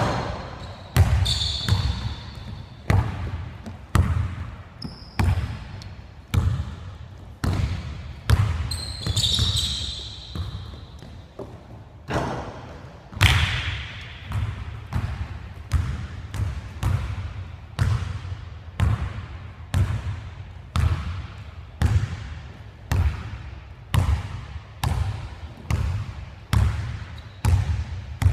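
Basketball being dribbled on a hardwood gym floor, bouncing steadily about one to two times a second, each bounce echoing in the large hall. Sneakers squeak on the floor briefly a couple of times.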